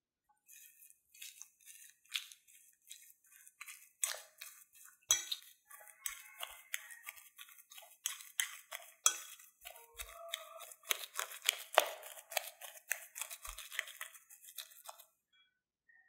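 Metal spoon mashing boiled potato chunks in a glass bowl: repeated scrapes and clinks of the spoon against the glass, with soft squishing of the potato. The strokes come faster about five seconds in and stop near the end.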